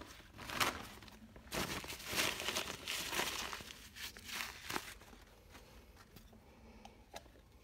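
Hands working over parts: irregular crinkling, rustling and scraping, with a few short clicks, busiest in the first five seconds and fading to light handling near the end.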